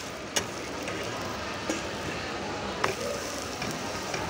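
Thalipeeth frying in oil on a large iron griddle: a steady sizzle, with a few sharp metallic clinks of a spatula about a second apart.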